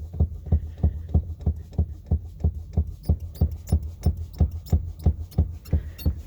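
Steady rhythmic clicking, about three clicks a second, each with a low thud beneath it.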